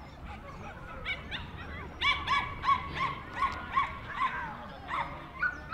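Jack Russell Terrier puppy yapping: short, high-pitched yaps that start about a second in and then come quickly, roughly two a second.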